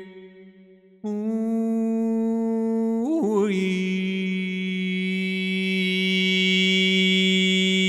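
A man's voice holding a long hummed tone rich in overtones. It begins about a second in, after a brief pause. A little after three seconds its pitch wavers and dips slightly, then it settles into a steady note.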